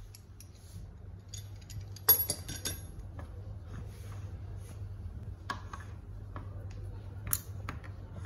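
Scattered metallic clinks and taps of a hex key and hand tool against a steel machine vise, the sharpest with a short ring about two seconds in and another near the end, over a steady low hum.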